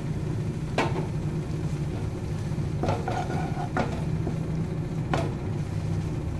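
A spatula stirring and scraping thick grated-carrot halwa in a non-stick pan, with four sharp taps of the spatula against the pan, about a second apart at first, over a steady low hum.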